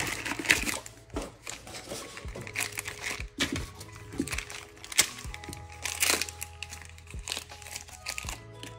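Plastic packaging crinkling and rustling in irregular bursts as a small part is handled and unwrapped, with a loud rustle of a cardboard box at the start, over background music.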